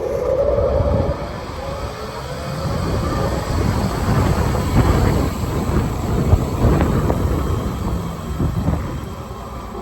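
Wind buffeting the microphone of a phone mounted on a moving electric golf cart: a loud, uneven low rumble that swells and dips in gusts. A faint rising whine sounds in the first second.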